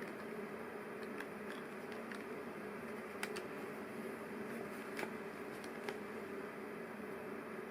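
Small plastic LEGO Technic pieces clicking and tapping as they are handled and fitted together, a few scattered clicks over a steady low background hum.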